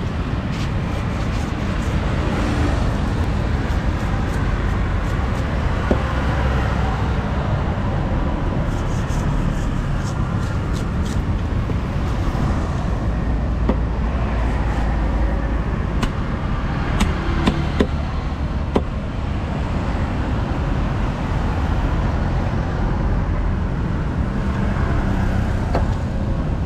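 Steady rumble of road traffic with outdoor market background. A few sharp knocks, clustered about two-thirds of the way through, come from a large knife striking the wooden cutting log as a fish is cleaned.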